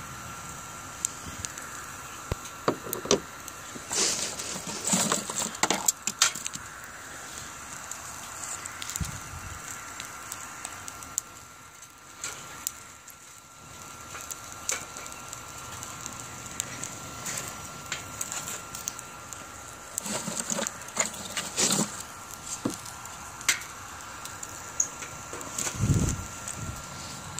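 Wood fire crackling and popping in a BioLite CampStove, with a thin steady whine underneath, the stove's fan running. The sharp snaps come in clusters about four to six seconds in and again around twenty to twenty-two seconds, and there is a dull thump near the end.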